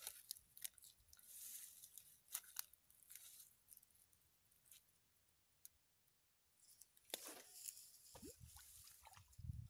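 Faint rustling and scattered small clicks of something being handled, with a few soft low thumps near the end.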